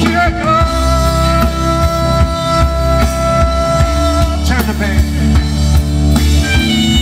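Live band: a soprano saxophone holds one long high note for about four seconds, breaks into a quick run of notes, then settles on another held note, over a drum kit and electric bass.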